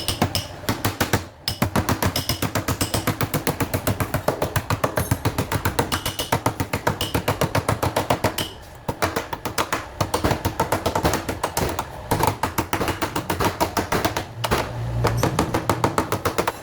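Rapid, rhythmic hammer strikes on a car door's steel panel during dent repair, about five or six a second, pausing briefly a few times.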